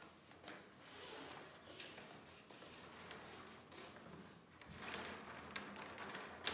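Faint rustling and rubbing as a plastic Teflon wire liner is fed by gloved hands into a MIG welding torch hose package, with a few small clicks and one sharp click near the end.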